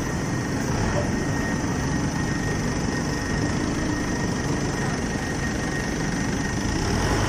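Steady industrial roar of a running aluminium tilting rotary furnace with its burner and fans, with a thin steady high tone over it.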